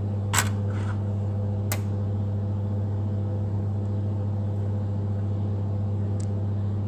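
Steady low electrical hum from the control-cabinet equipment, with two sharp clicks of a handled plastic PLC module in the first two seconds and a fainter tick about six seconds in.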